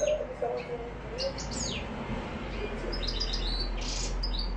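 European goldfinch (maqnin) singing: a run of short high chirps and quick downward-sliding whistles, thickening into rapid twittering about three seconds in.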